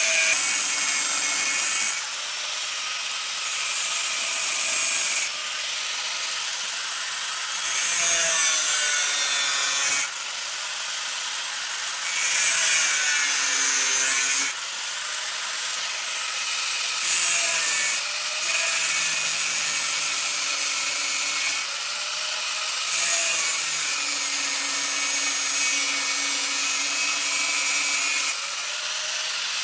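Electric grinder working leaf-spring steel, in passages of a few seconds with a steady hiss of grinding, its motor pitch sagging as it is pressed into the metal and rising as it eases off.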